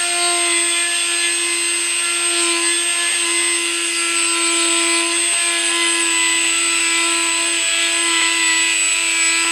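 Handheld rotary tool with a grinding-stone bit, running at a constant speed with a steady whine as it grinds a hole wider in a 3D-printed plastic skull model.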